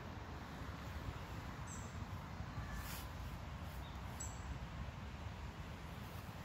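Outdoor park ambience: a steady low rumble, with a few faint, brief high chirps from small birds.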